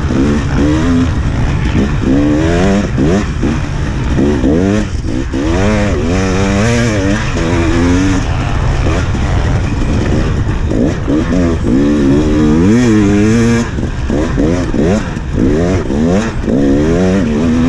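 2017 KTM 300XC's 300 cc two-stroke single-cylinder engine revving hard and easing off over and over as the dirt bike is ridden at race pace through sand, its pitch rising and falling every second or so.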